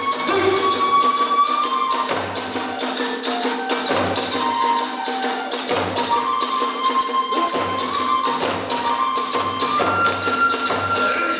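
Kagura hayashi: a bamboo flute plays a held melody that steps between notes, over fast, steady drumming and hand cymbals.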